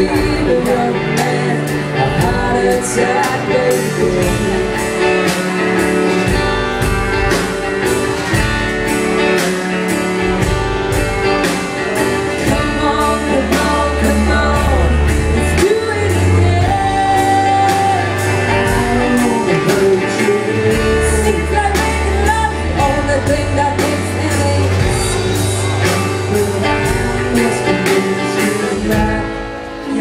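A band playing live: a singer over acoustic guitar, cello and drums, with a steady beat and long, low held notes in the middle of the passage.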